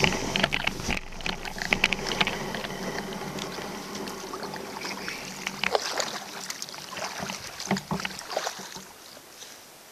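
Kayak being paddled: irregular water splashes and knocks of the paddle against the hull over a steady hiss, growing fainter near the end.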